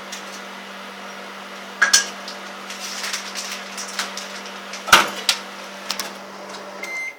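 Microwave oven humming steadily while an egg heating inside it pops and cracks, with the loudest bang about five seconds in as the egg bursts. The hum cuts off near the end.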